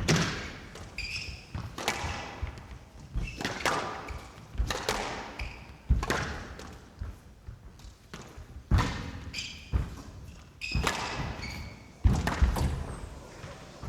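Squash rally: the ball cracking off rackets and court walls at irregular intervals, about one hit a second, each hit echoing briefly in the hall, with short high squeaks of shoes on the court floor in between.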